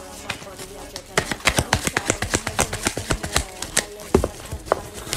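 Tarot cards being shuffled by hand: a quick, irregular run of sharp card clicks and taps, several a second.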